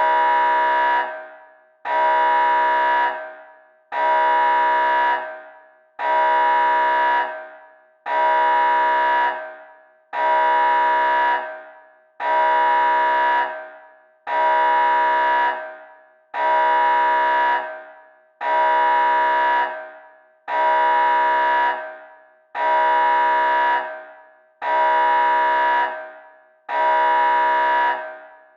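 Nuclear alarm sounding in repeated blasts: a steady, unwavering horn-like tone about a second long, repeated every two seconds, each blast trailing off before the next.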